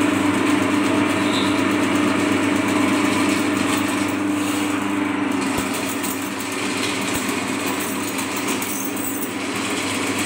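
Rothenberger R600 sectional drain-cleaning machine running steadily, its electric motor spinning the coiled steel spiral cable down a clogged drain pipe.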